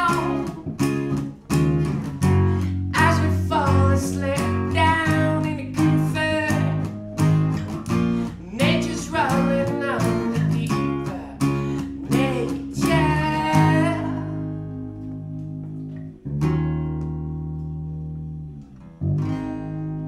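Acoustic guitar and electric bass playing an instrumental passage, with a wordless melodic line bending up and down over them. About two-thirds of the way in the busy playing stops and held chords ring out and fade, with a new chord struck a couple of seconds later and another near the end.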